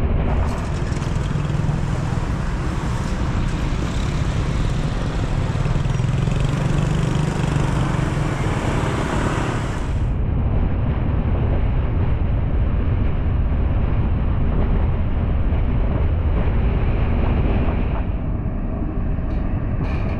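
Road noise from a car being driven: a steady low rumble of engine and tyres, with a few faint clicks near the end.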